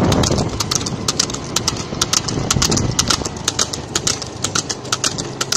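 Water buffalo's hooves clip-clopping at a quick, even pace, about six beats a second, over a motor vehicle's engine running low and steady.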